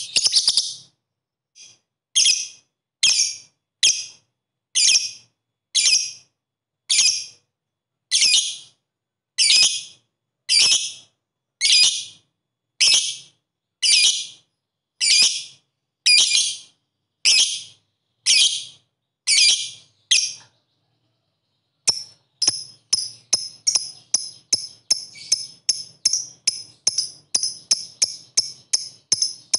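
Lovebird giving shrill, harsh chirps, one about every second, then after a short pause a faster run of chirps about two to three a second. This is the repeated-chirp 'ngetik' calling that lovebird keepers use as a lure.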